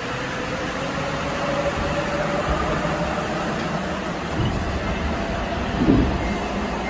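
Rubber-tyred Sapporo subway 8000-series train running through a tunnel, heard from inside the car: steady running noise with a faint motor whine slowly rising in pitch. Two low thumps come near the end as the train reaches a station.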